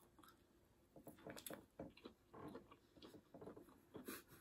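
Near silence with faint, scattered small clicks and soft taps.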